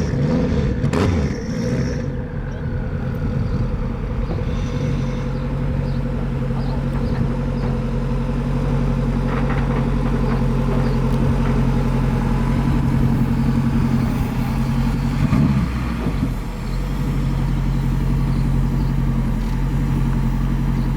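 A vehicle engine idling steadily, with a brief dip and change in its note about fifteen seconds in before it settles back to the same idle.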